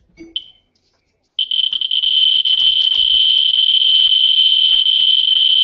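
Geiger counter's speaker, a short beep at first. Then, from about a second and a half in, clicks come so fast that they merge into a continuous high-pitched buzz: the count rate from a very hot radioactive sample is high enough to put the Ludlum Model 3 almost off its scale.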